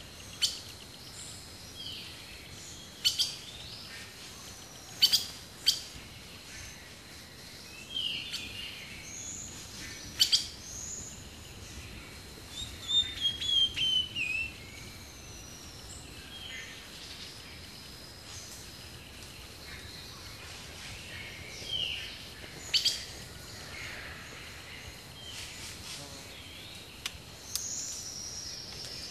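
Wild birds calling and singing over a steady background hiss: loud, sharp single calls every few seconds, short whistled glides, and a quick falling series of notes about halfway through.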